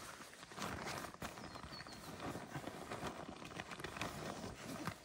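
Rustling and scuffing of the rolled-up Dometic Pico inflatable swag's fabric and strap webbing as it is handled and strapped tight, with irregular small knocks.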